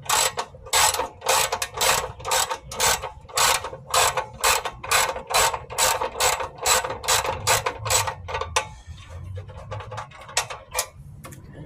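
Hand ratchet wrench clicking in steady back-and-forth strokes, about three clicks a second, while backing out a bolt. For the last few seconds the clicks come faster and fainter as the bolt turns loose.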